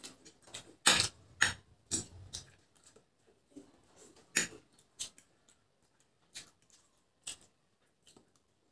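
Close-up eating sounds of Maggi instant noodles: irregular sharp mouth smacks, slurps and chewing noises, with the loudest cluster about a second in and another a little after four seconds.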